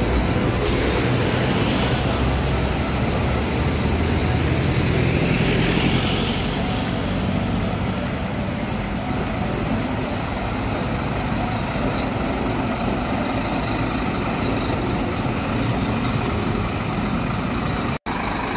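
Diesel engine of a large coach bus running as the bus manoeuvres slowly, a steady low hum, a little louder in the first six seconds. A short rising hiss about five seconds in.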